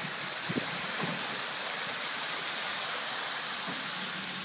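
Heavy rain pouring steadily, with a vehicle's tyres rushing and splashing through standing floodwater on the road. A couple of short soft knocks come about half a second and a second in.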